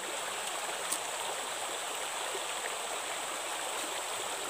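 Creek water running, a steady rushing hiss, with one brief click about a second in.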